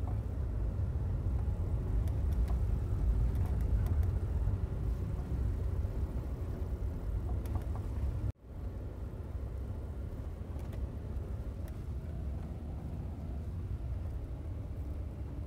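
Low rumble of tyres rolling over rutted beach sand, heard inside the cabin of a Tesla Model X, an electric SUV with no engine sound; a faint steady whine runs through the first half. The sound cuts abruptly about eight seconds in and carries on a little quieter.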